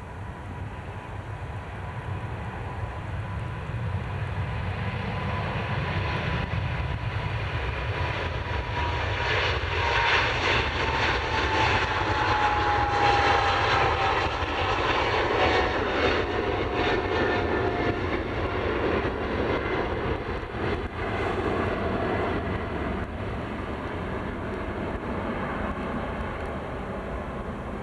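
Twin-engine jet airliner passing close by: the engine noise builds, is loudest in the middle, then eases, with a whine that slides downward in pitch as it goes past.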